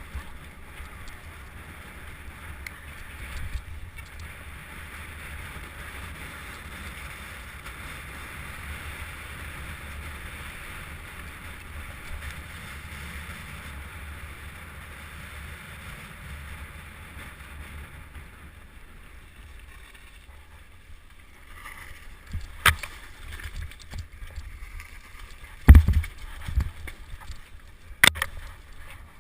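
Steady rushing noise with a low rumble, as from a mountain bike ridden downhill with wind on the microphone, then a few sharp knocks and rattles in the last seven seconds, the loudest about 26 seconds in.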